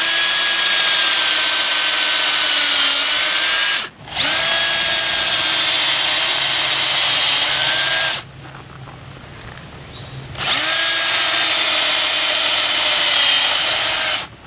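Electric hand drill boring holes into a log with a half-inch bit: three runs of high motor whine, the last two starting with a quick spin-up. The pitch sags slightly as the bit cuts. There is a short break about four seconds in and a longer one of about two seconds after eight seconds.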